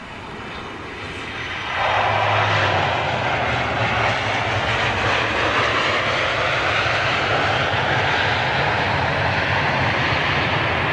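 A passing airliner's engines, swelling, then jumping up sharply about two seconds in and holding a loud, steady roar.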